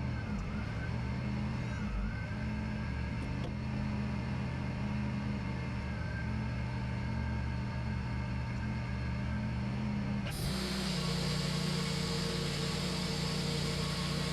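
Wood-Mizer LT40 portable band sawmill running steadily under its engine. About ten seconds in the sound changes abruptly, with a much stronger hiss joining the engine's note.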